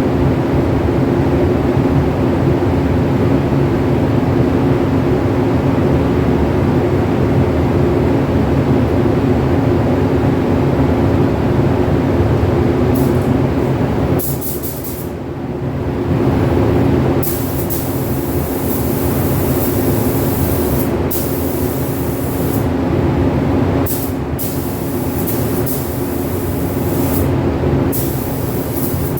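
A fan running loud and steady with a low hum, switched on just before. From about halfway, a paint spray gun hisses in a series of short passes with gaps between them as clear coat is sprayed.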